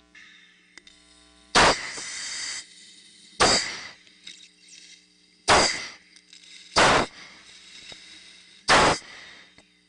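A pilot's forceful breath exchanges during anti-G straining maneuvers at high G, heard through his oxygen mask's microphone. Five sharp rushes of air come about every two seconds, over a steady low hum.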